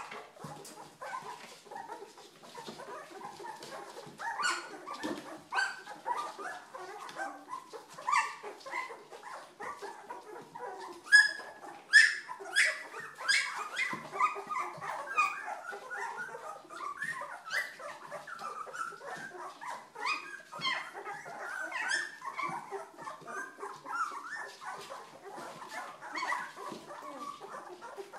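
A litter of two-week-old Old English Sheepdog puppies whimpering, squeaking and yipping, many short overlapping calls. Several louder, sharper yelps come near the middle.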